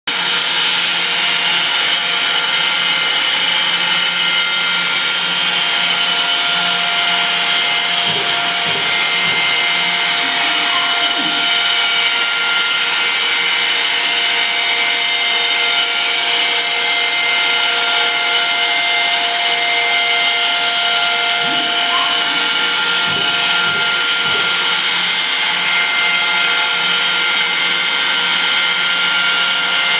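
CNC machine running steadily: a constant machine whine made of several steady tones over a hiss, at an even level throughout.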